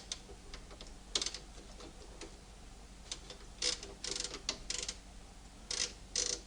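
Short clicks and rattling scrapes from the ribbon spools and metal ribbon guides of an Imperial M50 typewriter being handled as the ribbon is threaded. There is one about a second in, a cluster in the middle, and two more near the end.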